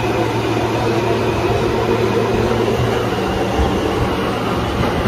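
Subway train running, heard from inside the car: a loud steady rumble with a low hum.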